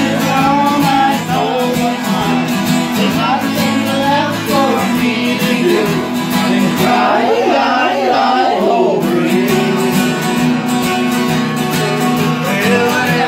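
Acoustic guitar strummed steadily, with singing over it.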